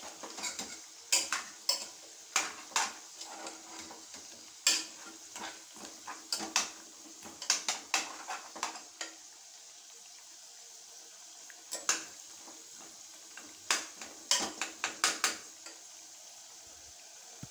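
A spoon stirring chicken in curry masala in an aluminium pressure cooker, clanking and scraping against the pot in irregular clusters over a faint steady sizzle. The stirring pauses for a couple of seconds midway, then resumes.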